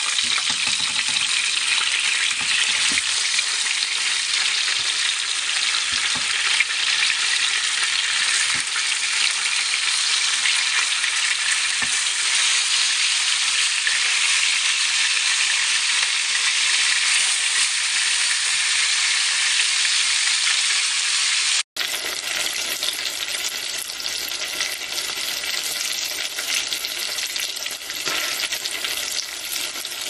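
Skin-on fish fillets sizzling steadily as they pan-fry in oil, with a few faint knocks of a utensil against the pan. About two-thirds of the way through it cuts abruptly to a different, fuller sizzle of chicken pieces frying in bubbling oil.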